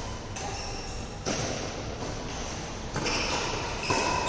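Badminton rackets striking a shuttlecock in a doubles rally: four sharp hits about a second apart, each echoing in a large hall.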